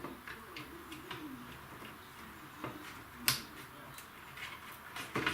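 Light clicks and taps of a hard drive being handled and set in place inside a CCTV recorder's case, with one sharper click about three seconds in and a few more near the end.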